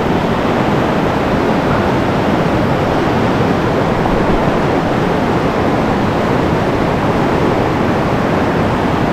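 Fast river water rushing over boulders in a riffle: a steady, even rush.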